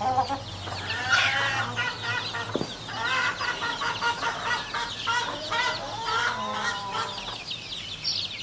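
Free-ranging domestic chickens foraging as a flock, with many overlapping clucks and short calls throughout.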